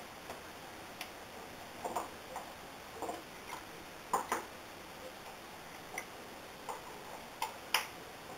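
Light wooden clicks and knocks at irregular intervals as hands adjust the wooden comb holder of a wool-combing kit and fit the comb into it, over a steady faint hiss.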